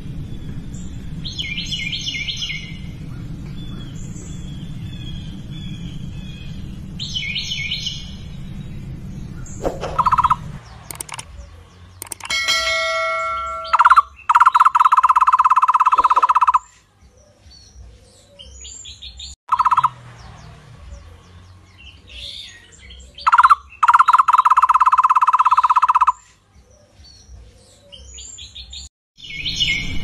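Wild birds calling: short chirping phrases over a low steady background noise, then, after about ten seconds, louder fast-trilled calls, two of them lasting a few seconds each.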